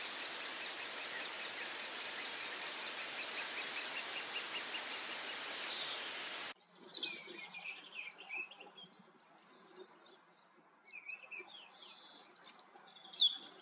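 Great spotted woodpecker nestlings begging: a steady, even series of high chirps, about four a second, over a hiss. About six and a half seconds in it cuts off abruptly, and varied chirps and whistles of other birds follow, loudest near the end.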